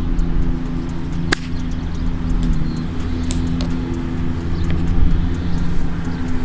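A golf iron strikes the ball once about a second in: a single sharp click. A steady low hum runs underneath.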